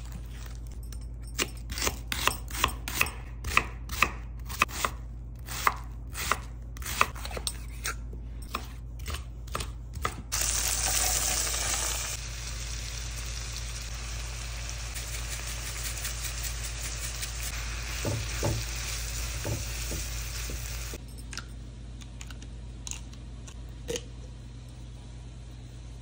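A kitchen knife chops vegetables on a wooden cutting board, about two sharp chops a second. About ten seconds in, vegetables hit a hot pan with a loud burst of sizzling. It settles into steady sizzling as diced onion and red bell pepper sauté in butter, with a few knocks of a utensil in the pan. Near the end the sizzling gives way to quieter room sound with a few faint clicks.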